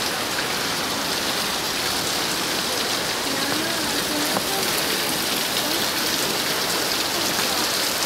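Clean spring water falling in thin streams down a mossy rock face and spattering on the stones below: a steady splashing hiss.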